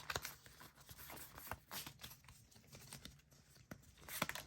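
Faint rustling, crinkling and light irregular clicks of a foil booster pack wrapper and trading cards being handled.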